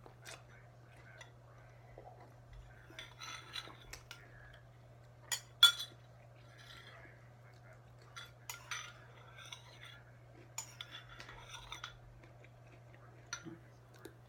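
A metal spoon clinking and scraping against a cereal bowl while eating, in scattered short strokes; the loudest is a sharp double clink about five and a half seconds in. A steady low hum runs underneath.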